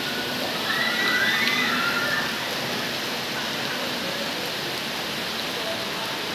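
Heavy rain falling steadily, an even hiss. About a second in there is a brief high-pitched warbling sound.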